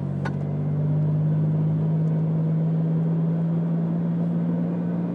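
Steady in-cabin drone of a car driving at road speed: a low, even engine hum over tyre and road noise.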